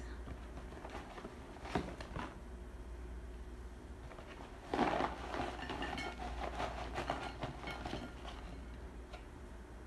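Paperboard takeout box being handled and tipped, rustling, with a sharp click about two seconds in and a louder knock about five seconds in followed by rustling as fries slide out onto a plate.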